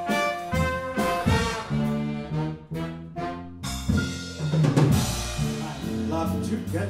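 Live big band: trumpets and trombone play a brass passage over bass and drums, then drop out a little past halfway, leaving the rhythm section playing.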